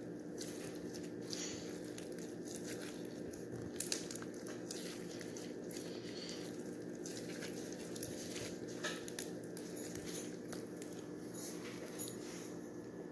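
Foam-bead slime (floam) squeezed and kneaded by hand, giving irregular small crackles and squishes as the beads rub and pop against each other.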